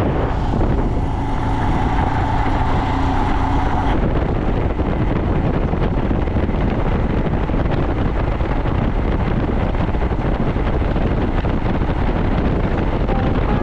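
Riding noise from a Royal Enfield Himalayan single-cylinder motorcycle: a steady rush of wind over the microphone with the engine running underneath. About four seconds in the sound changes abruptly, the faint steady tones dropping away and leaving an even rush.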